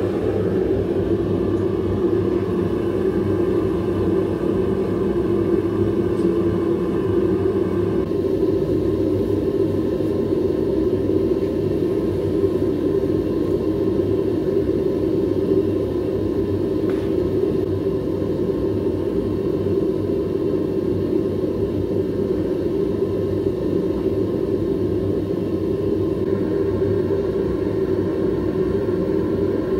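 Propane burner of a Devil Forge furnace running steadily, a constant rush of flame heating a load of zinc to melt it. The sound shifts slightly about eight seconds in and again near the end.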